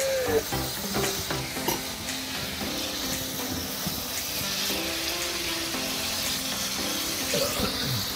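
Pieces of fish frying in hot oil in a pan, with a steady sizzle throughout.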